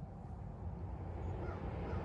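A few faint bird calls over a low rumble that grows slowly louder.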